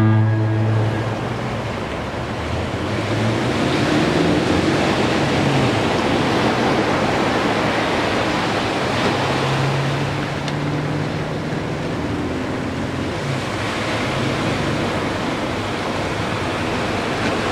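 Ocean surf breaking and washing up a sandy beach, a continuous rushing wash that swells and eases. A deep Golden Gate Bridge foghorn blast cuts off just under a second in, and a fainter low horn tone is heard under the surf later on.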